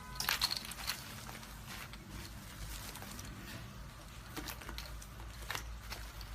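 Slime being squeezed and worked by hand, making a steady run of small sticky crackles and pops over a low hum.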